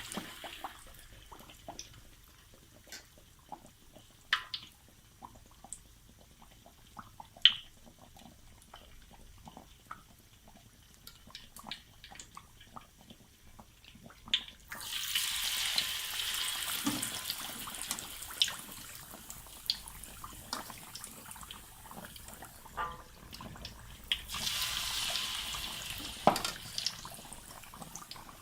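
Battered pork slices frying in plenty of hot oil in a pan: scattered pops and crackles, with a louder sizzle that swells about halfway through and again near the end.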